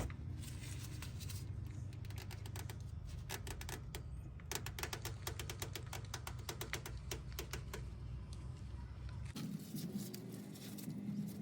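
Socket ratchet clicking rapidly in several runs as it turns, loosening the oil filter.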